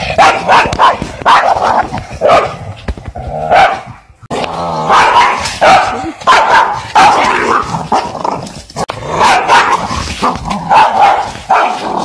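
Dog barking repeatedly in quick succession, about two to three barks a second, with a brief pause about four seconds in.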